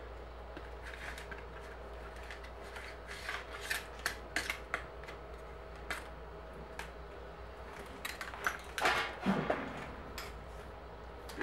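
Light metallic clicks, taps and rubbing from hand tools and a bicycle front derailleur gear cable as the cable is worked free and pulled out through the frame. A louder rustle comes about nine seconds in.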